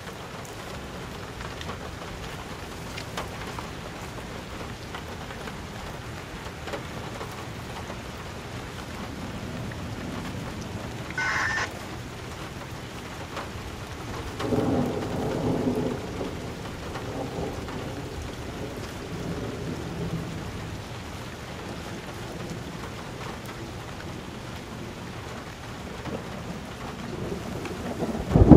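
Steady rain with thunder rumbling in a thunderstorm. Near the middle a few brief pitched tones sound, and a loud burst starts suddenly right at the end.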